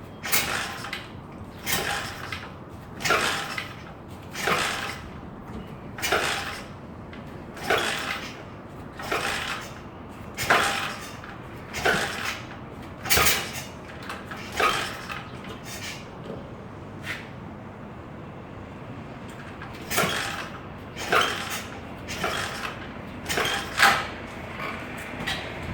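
A 110cc SSR four-stroke pit bike kicked over again and again, about one kick every second and a half, the engine turning over briefly on each stroke without firing. There is a short pause of about three seconds partway through before the kicking resumes. This is a no-start: the engine does not catch even after a carburettor clean, fresh gas, new oil and a cleaned spark plug.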